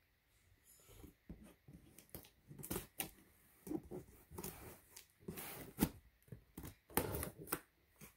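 Scissors cutting through packing tape on a cardboard shipping box, with irregular clicks, scrapes and rustles as the box is handled, and a longer scrape about five seconds in.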